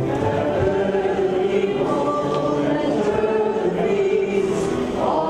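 Many voices singing a hymn together, a steady sung line of held, changing notes.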